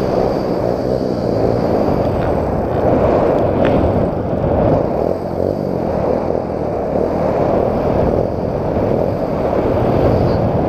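Wind rushing and buffeting over the camera's microphone in flight: a steady, loud, low rumbling noise from the air streaming past.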